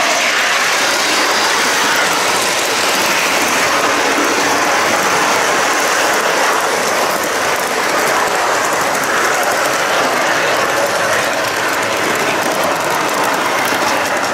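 Model train rolling along metal track, picked up by a camera mounted on its last wagon: a steady, dense metallic rattle of wheels and running gear that carries on without a break.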